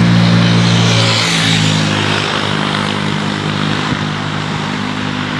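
A loud, steady engine drone made of several even tones, dropping slightly in pitch about a second in.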